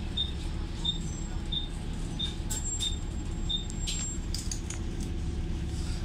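Bus engine running with its loud cooling fan, a steady low hum heard from inside the bus. A high electronic beep repeats about every three-quarters of a second and stops about halfway through, followed by a few sharp clicks.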